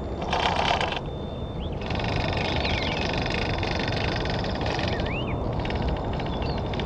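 Micro RC crawler's small electric motor and geared transmission whining in spurts as it crawls over rocks, with loose stones crunching under the tyres. A few birds give short rising-and-falling calls behind it.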